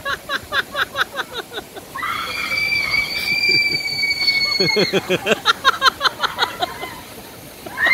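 Water-slide riders screaming: one long high scream held for about three seconds, with rapid bursts of laughter before and after it.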